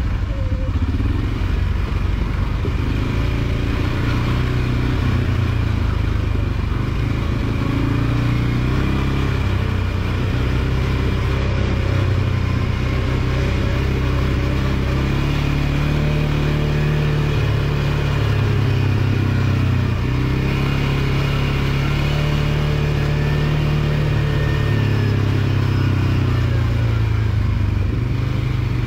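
ATV engine running continuously under way, its pitch rising and falling slowly as the throttle opens and eases.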